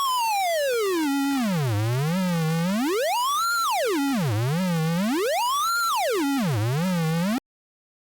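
Synthesized data-sonification tone whose pitch traces the border outline of the Netherlands. It glides down from high to low over about two seconds, then swoops up and down three more times with a small wobble at each low point, and cuts off abruptly about seven seconds in.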